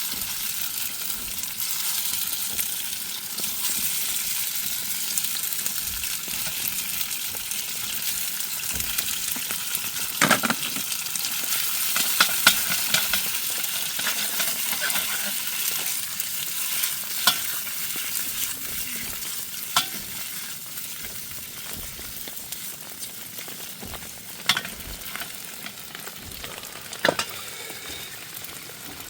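Soya chaap pieces frying in a little oil in a pan: a steady sizzle that slowly dies down, with a few sharp clicks now and then.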